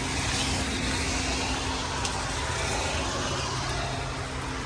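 A vehicle engine running steadily, a constant low hum under a wash of outdoor noise.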